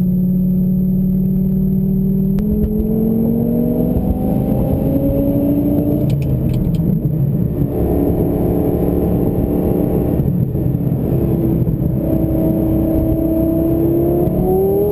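Twin-turbo Lamborghini Gallardo V10 heard from inside the cabin while driving. Its pitch holds steady at first, then climbs slowly, drops back around six seconds in and again around twelve, and rises faster near the end.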